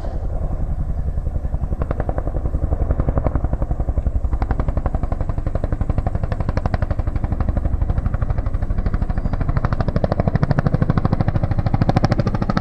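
CH-47D Chinook tandem-rotor helicopter, its rotor blades beating in a rapid, steady rhythm.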